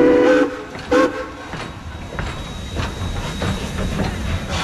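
Steam locomotive whistle sounding two blasts, a longer one then a short one about a second later, followed by the engine's steady chuffing and rail noise as it moves off.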